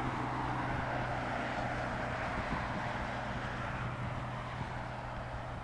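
Jet engines of an Airbus airliner on final approach with gear down: a steady rushing roar with a low hum beneath it.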